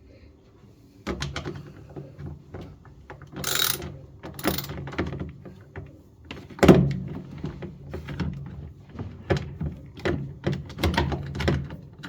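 Clunks, knocks and rattles of the cover under a washing machine being handled and worked free, with two short scraping slides a few seconds in and a sharper knock about halfway through.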